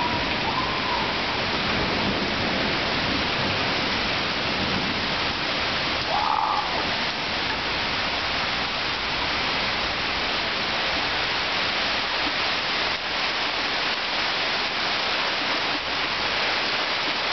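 Steady rain falling during a thunderstorm, an even hiss of rainfall on the porch and surroundings, with two short chirps about half a second and about six seconds in.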